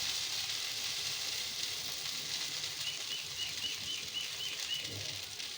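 A dosa sizzling in oil on a hot griddle: a steady hiss that slowly fades. About halfway through comes a quick run of faint, high chirps.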